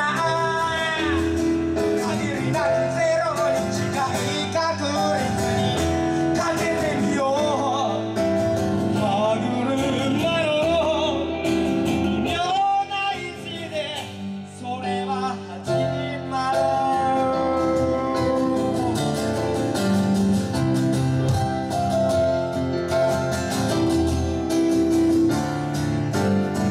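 Acoustic guitar and piano playing a slow ballad, with singing over them. The music drops quieter for a few seconds about halfway through, then comes back up.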